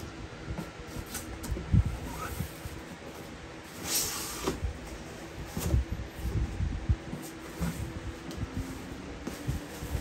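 Irregular knocks, clunks and rubbing from hands handling and working on a box fan's parts, with a brief scraping hiss about four seconds in.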